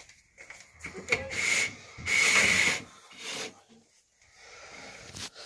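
Rubbing and scraping noise right against the microphone, fur brushing over the phone, in uneven bursts with the loudest about two seconds in.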